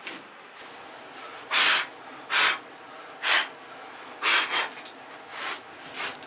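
Gloved hands brushing dust off a wooden board and a stone slab: about six short rushing strokes, roughly one a second.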